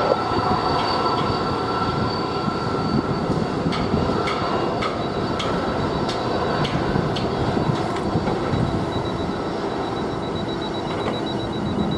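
Airbus A330-300 airliner taxiing, its jet engines running at idle: a steady rumble with a thin high whine over it and a few faint ticks.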